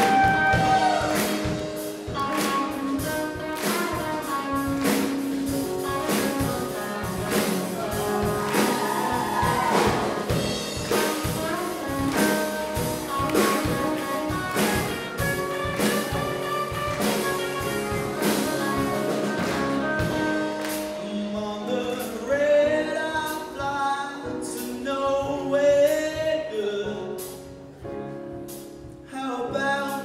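Live band playing a song: a lead vocalist singing over drum kit, piano and electric guitar. The drumming thins out about twenty seconds in, leaving the voice and sustained chords more exposed.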